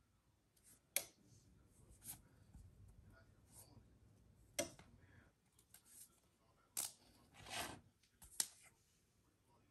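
Tape being handled and re-stuck: a few sharp, widely spaced clicks and a brief rasping tear about three-quarters of the way in.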